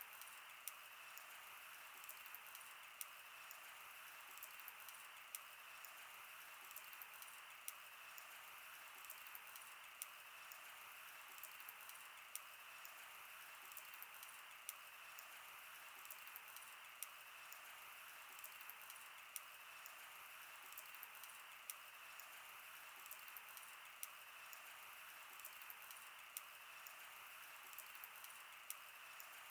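Wood fire burning with a faint steady hiss and frequent small, irregular pops and snaps.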